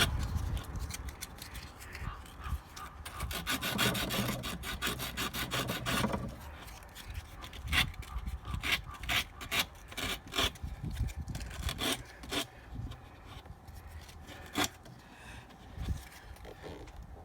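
Sandpaper rubbed by hand over the rusty metal of a tailgate gas-strut mounting, cleaning off rust so the strut will seat. A run of quick back-and-forth strokes gives way to slower, separate strokes that thin out near the end.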